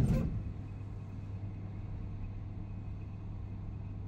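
A Schindler lift running: a short loud knock right at the start, then a steady low hum as the car travels.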